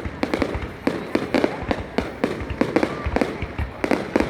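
Fireworks going off in a continuous barrage of sharp bangs and crackles, several a second.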